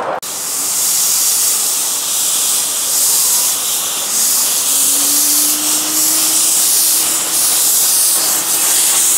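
Steam hissing loudly and steadily from the open cylinder drain cocks of a 7¼-inch gauge miniature steam locomotive, typical of a loco standing or just pulling away. A low tone slides up and then holds steady from about halfway through.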